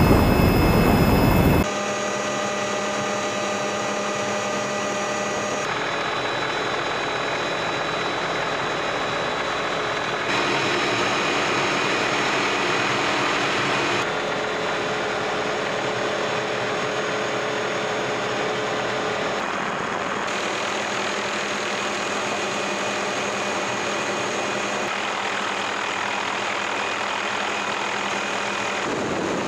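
Steady helicopter engine noise heard from inside the aircraft: a constant rushing hum with high whining tones. Its pitch and level change abruptly several times.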